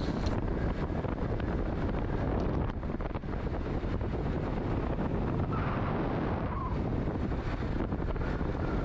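Wind rushing over the microphone, with the steady drone of a moving two-wheeler and its tyres on the road.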